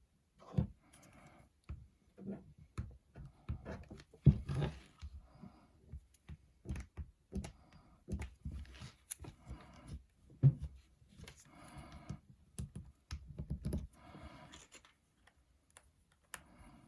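A plastic card scraping and sliding over a tempered glass screen protector on a phone to press out air, with irregular clicks and taps as the glass and phone are handled.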